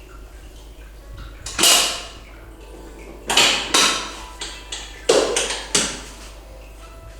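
A quick run of about eight sharp knocks: one about a second and a half in, then a cluster of seven between about three and six seconds in, each dying away within half a second.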